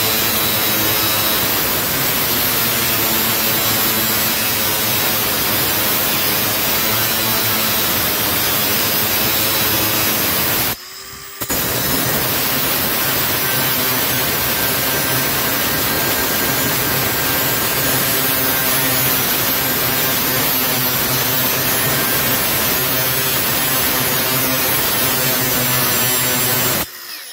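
Milwaukee M18 FUEL 2980-20 cordless 6-inch angle grinder cutting into a rusted steel door hinge, a steady loud grinding that breaks off briefly about eleven seconds in, then stops just before the end. The disc is worn and cuts the steel slowly.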